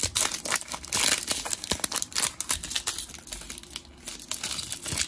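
Foil wrapper of a Panini Chronicles Draft Picks trading-card pack being torn open and crinkled in the hands: a rapid run of crackles, loudest about a second in.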